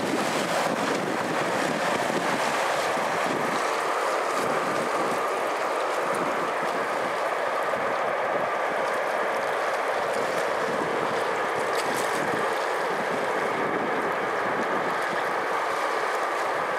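Sea waves washing steadily against the boulders of a breakwater, with wind, an even rushing noise that holds at one level throughout.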